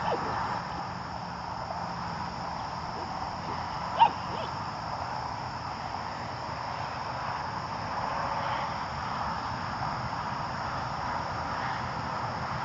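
A single short, sharp dog bark about four seconds in, over a steady high-pitched hiss.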